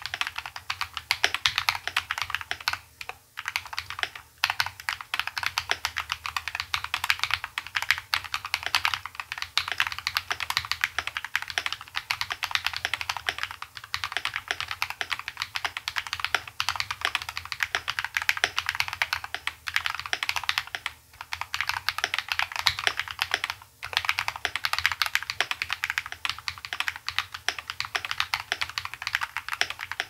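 Fast, continuous typing on a YMDK Melody 96 beech-wood mechanical keyboard with a brass plate, pre-lubed Feker Matcha linear switches and PBT cherry-profile keycaps, foam- and tape-modded with lubed stabilizers. A dense run of keystrokes, with a few short breaks about three and four seconds in and again past the twenty-second mark.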